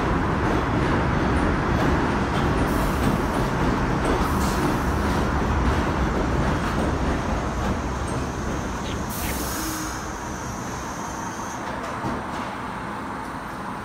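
R62A subway train rumbling into the station and slowing to a stop, the rumble dying down over the last few seconds. Short bursts of air hiss from the brakes come three times, and a thin high whine sounds about two-thirds of the way through.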